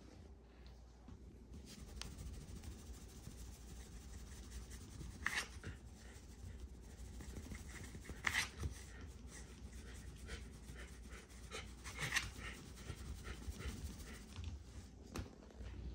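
Shiba Inu licking and grooming its fur, its tongue rasping steadily over its coat, with three louder strokes a few seconds apart.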